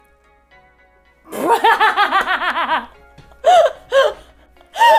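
Women laughing: a quick run of ha-ha-ha pulses lasting about a second and a half, starting a little over a second in, then a few shorter laughs. Faint background music plays under it, alone in the first second.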